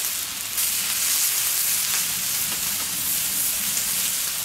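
Entrecôte steak sizzling steadily as its fat edge is seared on a hot steel fire plate, the steak held upright with tongs.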